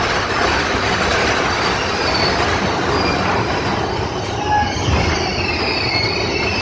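Big Thunder Mountain Railroad mine-train coaster cars rumbling steadily along the track, heard from on board, with faint high wheel squeals now and then.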